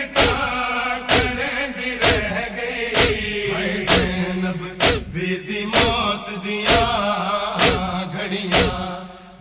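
A noha party of men chanting a lament together, over steady matam: hands striking chests in unison about once a second.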